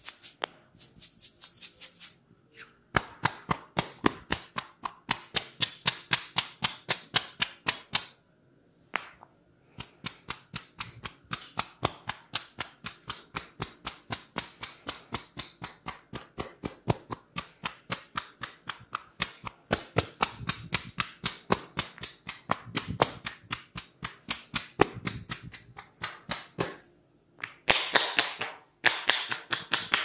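Hair cracking and tapping on the scalp during a head massage: rapid crisp clicks, about five a second, in runs broken by short pauses.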